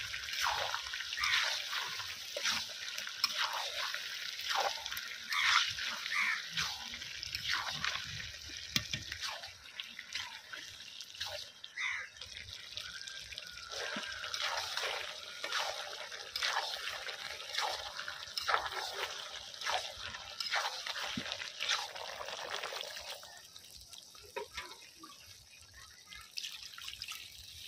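Chicken and potato curry sizzling and crackling in a hot iron kadai as it is stirred, a steady hiss full of short pops. About 23 seconds in the sizzle drops away and the pan goes quieter, the curry now sitting in watery gravy.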